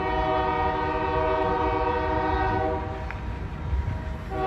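Union Pacific diesel locomotive's air horn sounding a long chord of several notes for nearly three seconds, then a fresh blast starting near the end, over the low rumble of the train.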